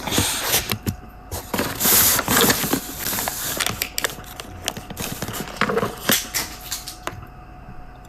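Irregular clicks, rubbing and clattering from the recording phone being handled and pulled at by a child, stopping about a second before the end.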